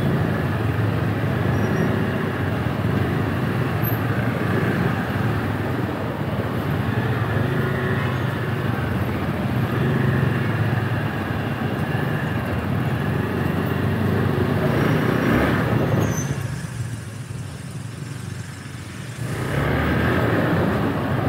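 Scooter and motorcycle engines running at low speed in dense two-wheeler traffic, heard from a scooter riding among them. The noise drops for a few seconds about three-quarters of the way through, then comes back.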